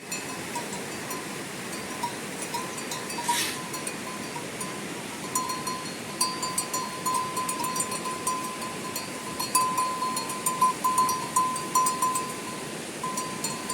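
Heavy rain falling steadily, with a small metal bell clinking irregularly over it, more often and louder in the second half.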